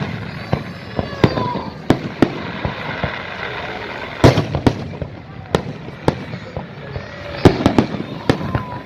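Fireworks display: aerial shells bursting with sharp bangs at irregular intervals, one especially loud about four seconds in and a quick cluster of bangs near the end, with people's voices underneath.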